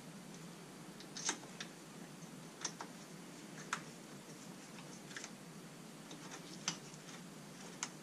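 Light metallic clicks and taps, about eight scattered irregularly, as new metal brake pads and their caliper parts are worked into a dirt bike's rear brake caliper by hand.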